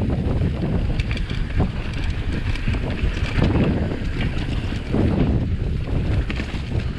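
Wind buffeting the microphone of a Scott Spark 950 full-suspension mountain bike rider, with the tyres rolling over a dirt and leaf-covered trail. Scattered short clicks and rattles sound throughout.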